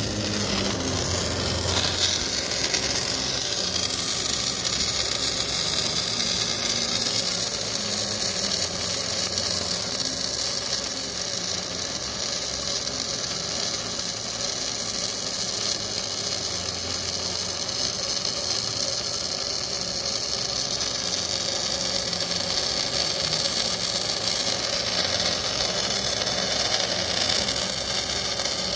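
Electric arc welding a layer pass: the arc gives a steady hiss that runs on without a break.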